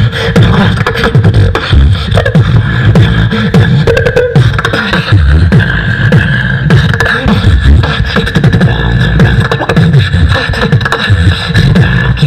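A beatboxer performing into a handheld microphone, amplified over a PA: a fast, continuous rhythm of deep kick-drum and bass sounds with sharp snare- and hi-hat-like clicks.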